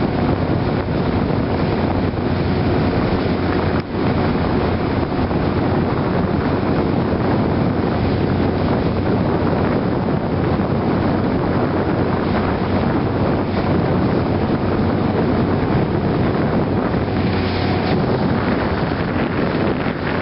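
Wind buffeting the microphone over the steady running of a small motorboat under way, with water rushing along the hull.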